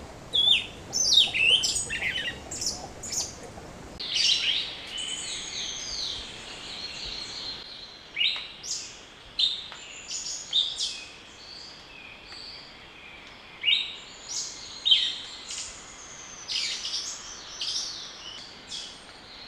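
Several birds chirping and calling: many short high chirps and whistles, several sliding down in pitch, coming in quick runs over a faint steady hiss.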